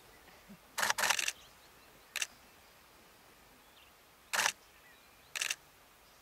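Camera shutters firing in five short bursts, the longest run of clicks about a second in, others near the middle and near the end, with faint bird chirps between them.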